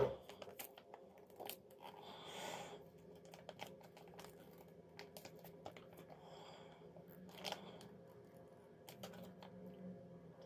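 Shiny foil mask sachet handled in the hands: faint crinkling with scattered small clicks, a sharp click at the start, and short louder rustles about two seconds in and again past the middle.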